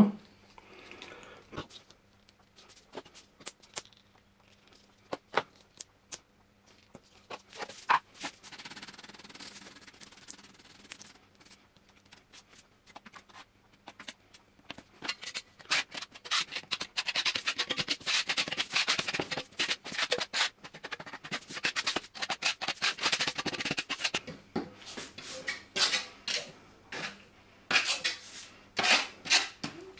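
Scattered clicks and taps, then from about halfway in a spatula scraping thick adhesive across a film-faced plywood board in repeated spreading strokes.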